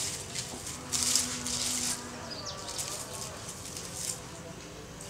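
Dry fallen leaves rustling and crackling in short bursts as a cat paws and digs through them, with the loudest burst about a second in.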